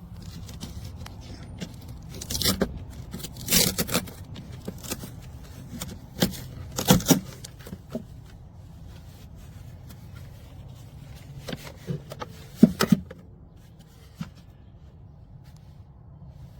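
Several short scrapes and knocks, as of objects being handled, over a faint low steady hum.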